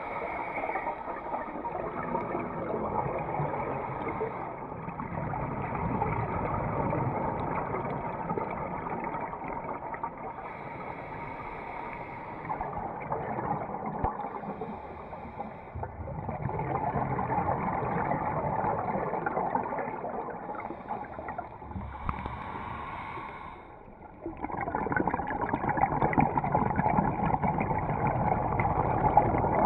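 Scuba regulator breathing and bubbling exhalations, muffled inside a GoPro underwater housing. The noise rises and falls in long swells of several seconds, with brief quieter breaks between breaths.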